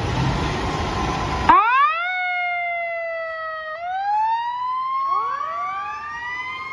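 A steady rushing noise cuts off about a second and a half in, and a fire engine siren starts wailing. Its pitch sweeps up, sags slowly, then rises again, with a second rising wail overlapping it near the end.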